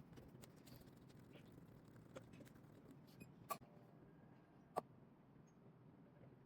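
Near silence: faint room tone with a few soft, short clicks, the clearest about three and a half and nearly five seconds in.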